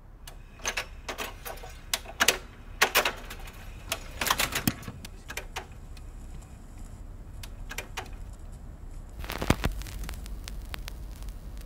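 Irregular clicks and clatter of a 7-inch vinyl single being set onto a turntable spindle. About nine seconds in the stylus drops onto the record with a sharper click, followed by a steady low rumble and surface noise from the spinning disc.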